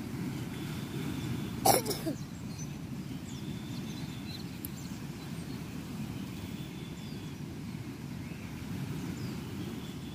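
Steady low rumble of wind and sea waves on an open shore, with one short, sharp, loud sound about a second and a half in.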